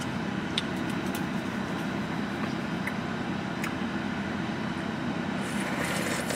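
Steady low hum of a stationary car heard from inside the cabin, with a few faint clicks.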